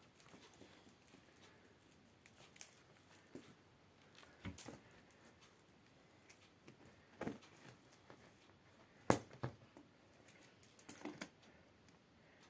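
Cats playing with a dried grass spikelet: faint, scattered rustles and light taps of the dry stem and paws, the sharpest tap about nine seconds in and a short flurry a couple of seconds later.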